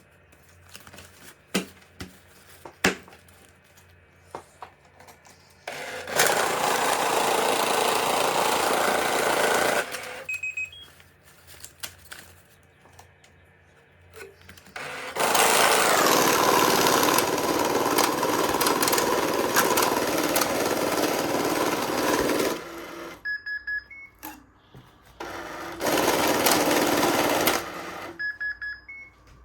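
Electric money-counting machine running in three steady bursts of a few seconds each, with short electronic beeps after the runs, between quieter clicks of money being handled.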